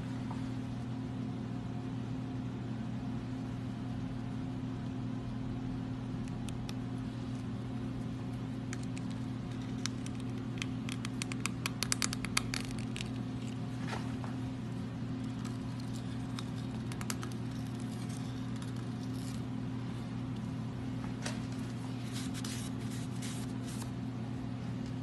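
A steady low hum of shop machinery, with a quick run of sharp metal scraping clicks about halfway through as a hand deburring tool is worked around the edge of the freshly reamed ball-joint taper bore in a steering knuckle. A few single clicks follow.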